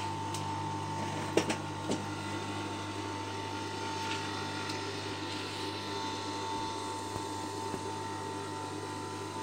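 Industrial sewing machine running with a steady motor hum while fabric is fed under the presser foot, with a couple of sharp clicks about a second and a half in.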